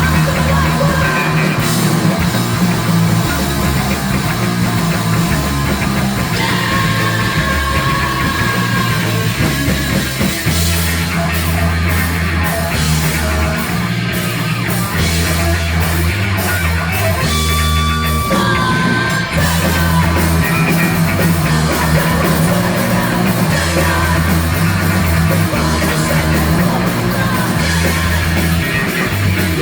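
Rock band playing live at full volume: heavy bass and guitar, drums with cymbal crashes, and yelled vocals.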